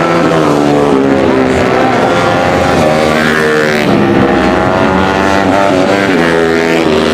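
Several single-cylinder four-stroke supermoto racing motorcycles (Honda CRF150L bored out to 180cc) at racing revs, overlapping engine notes rising and falling in pitch as the bikes accelerate and shift, with sharp climbs about three seconds in and again near the end.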